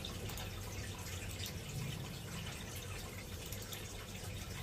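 A steady rushing noise, with faint repeated clicks of a Logitech G102 mouse's main button, its newly replaced Kailh switch, being tested.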